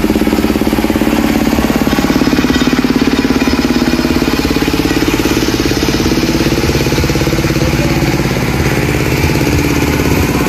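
Engine running steadily and loudly with a fast, even pulse.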